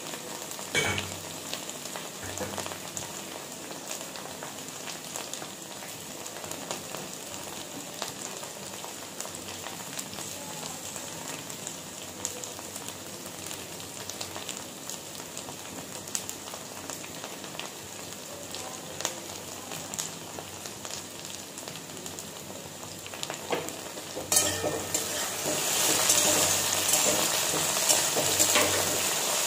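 Okra frying over high heat in a steel wok: a steady sizzle with small crackles. About three-quarters of the way in it grows louder as a spatula stirs and scrapes the okra around the pan.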